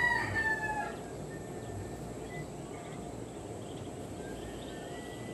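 Ducklings peeping faintly and sparsely over a steady outdoor background, a few short high calls that fall in pitch. One longer bird call in the first second tails off.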